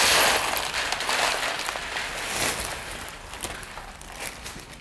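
Dry trail mix of cereal, pretzel sticks and candies being poured from a zip-top plastic bag into a plastic tub: the bag crinkles and the pieces rattle into the container in many small clicks. It is loudest at the start and tapers off.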